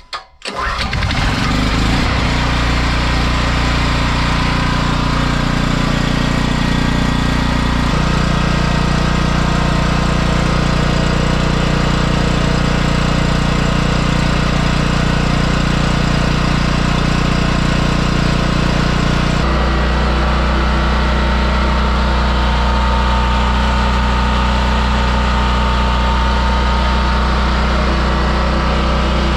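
Huttenberg H8500W petrol generator's engine starting on choke and catching within the first second, then running steadily at a constant speed.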